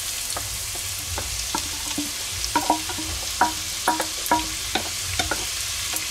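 Diced carrot, celery and onion sizzling as they are tipped into hot olive oil in a pot: a steady hiss, the start of sweating the soffritto. From about two and a half seconds in, a wooden spoon scraping the vegetables out of a stainless-steel bowl knocks against it again and again, each knock ringing briefly.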